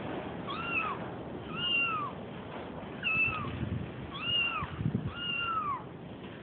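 Five high-pitched kitten meows, each about half a second and arching up then down in pitch, played from a recording on a phone to lure a tom cat.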